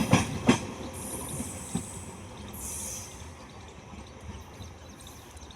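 A passing train fading away, with a few sharp clanks in the first two seconds and a brief hiss a little past the middle.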